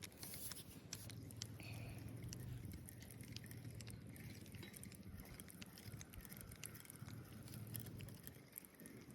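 Spinning reel being cranked to retrieve a cast lure, a faint steady whir with scattered small ticks.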